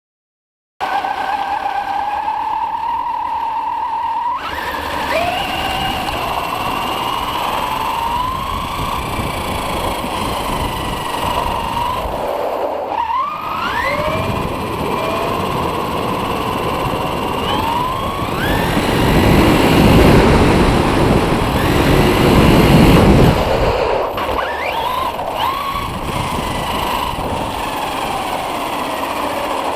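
Electric motor of a HobbyKing Rattler RC car running on a 3-cell LiPo, its whine rising in pitch again and again as it accelerates, over steady hiss. There is a heavier rumble for a few seconds past the middle.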